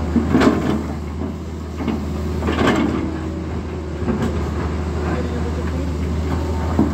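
Tata Hitachi Zaxis 220LC hydraulic excavator digging: its diesel engine hums steadily under load while the steel bucket scrapes and crunches through rocky soil. Louder grinding scrapes come about half a second in and again near three seconds in.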